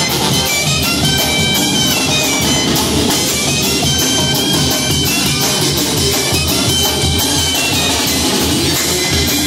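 Live Oaxacan brass band (banda de viento) playing a lively tune: sousaphones, trombones and other brass carry the melody over a drum kit, with bass drum and cymbals struck on a steady, driving beat.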